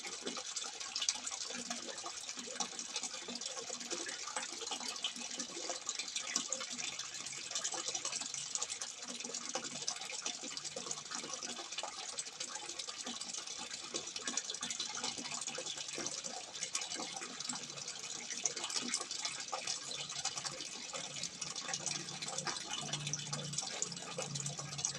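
Water pouring steadily from a simple spout and splashing into water below, an even, unbroken splashing.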